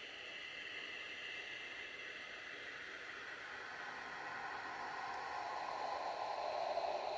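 Radio static: a steady hiss with bands of noise that slide slowly down in pitch and grow louder toward the end.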